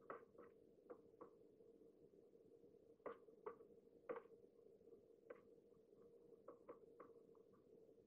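Faint, irregular taps of a crow's bill pecking at crushed biscuit in a feeder dish, over a faint steady hum.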